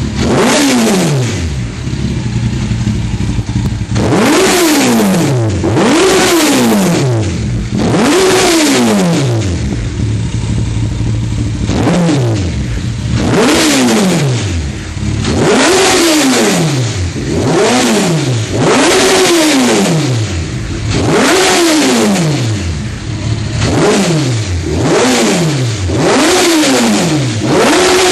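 Honda CBR1100XX Super Blackbird's inline-four engine, standing still, revved through a stainless oval Mass aftermarket exhaust. There are about a dozen throttle blips, each a quick rise in pitch and a slower fall back to a steady idle, with a longer idle about ten seconds in.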